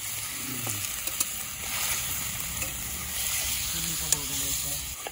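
Chicken pieces and potatoes sizzling in hot oil in a steel wok, with a metal spatula clicking and scraping against the pan now and then.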